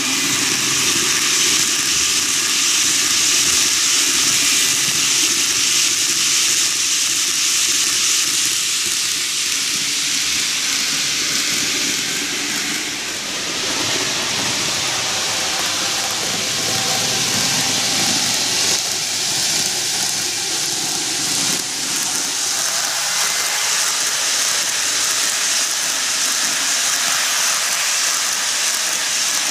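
TOMIX N-gauge JR 185 series model train, fifteen cars long, running on plastic cant track: a steady, high-pitched rushing noise of the wheels and drive. It dips a little about thirteen seconds in, while the train is away from the camera on the far side of the loop, and is close again near the end.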